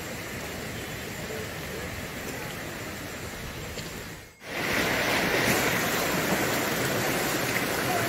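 Shallow stream rushing steadily over rocks, loud from about halfway through after a sudden brief drop; before that, a fainter steady hiss.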